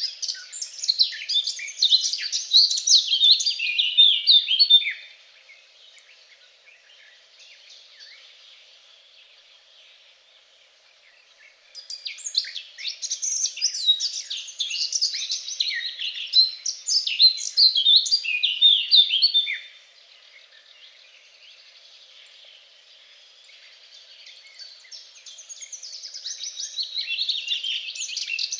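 A songbird singing long, rapid, varied phrases of high chirps and trills, each lasting several seconds, with quieter song from other birds in the pauses.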